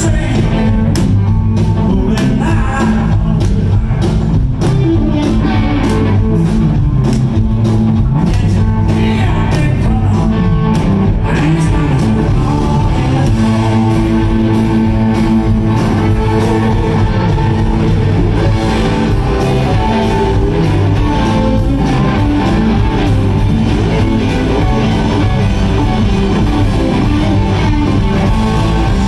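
Live rock band playing: electric guitars over bass guitar and a drum kit, loud and continuous.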